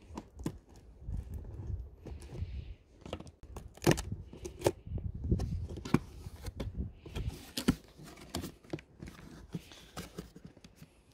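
Cardboard box being torn open by hand: irregular tearing and scraping of the cardboard tab and flaps, with scattered knocks and clicks of handling.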